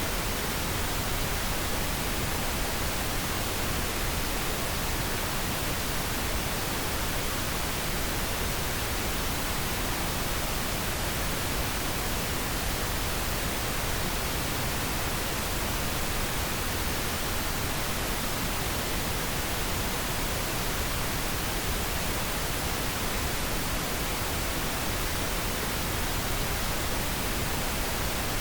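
Steady pink noise: an even, unchanging hiss spread over the whole range, with no tones, clicks or changes.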